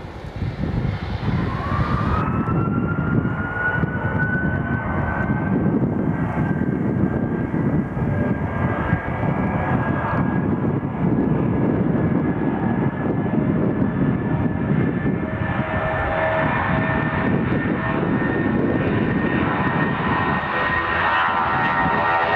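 Boeing 757-200's twin jet engines spooling up to takeoff thrust, a whine rising in pitch over the first few seconds and then holding steady over a loud rumble. The jet rolls down the runway and lifts off, and more engine tones grow louder near the end as it comes closer.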